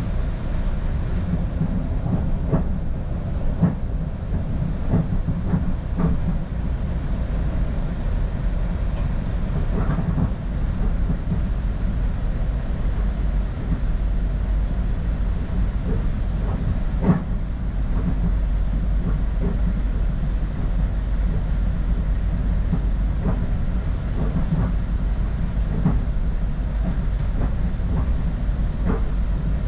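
Northstar commuter train in motion: a steady low rumble of wheels on rail, with irregular clicks and knocks from the track, loudest about 17 seconds in.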